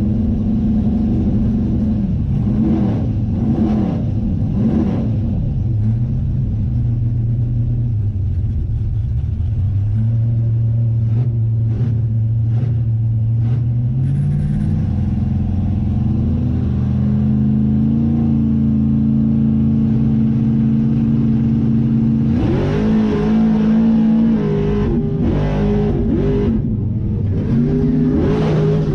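Loud car engines revving and running, the pitch gliding up and down, then held steady and stepping higher several times, with a sharp rise about 22 seconds in.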